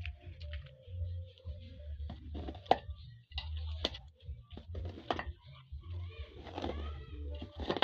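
A metal spoon scraping and knocking inside a large aluminium cooking pot as pilau rice is stirred, in irregular strokes over a steady low rumble.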